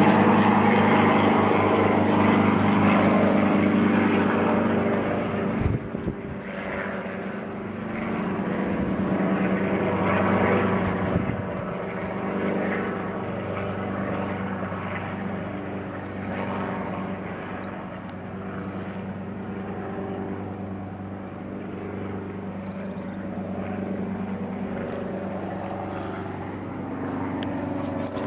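Schweizer 269 light piston helicopter flying low overhead: a steady drone of engine and rotor, loudest in the first few seconds, swelling briefly about ten seconds in, then slowly fading as it moves away.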